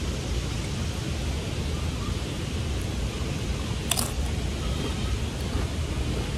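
Steady low outdoor rumble, with one short crunch about four seconds in as a tortilla chip is bitten.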